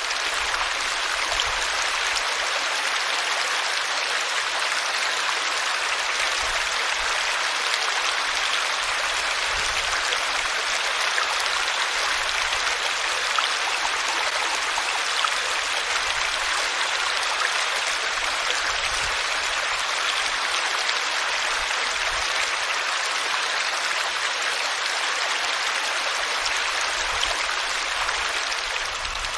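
Water flowing in a stream, running steadily with an even rushing sound.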